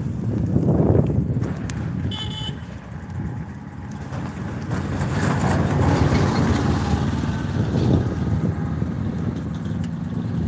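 Churning water heard close to the phone's microphone, a muffled low rumble that swells and fades, with a short horn-like tone about two seconds in.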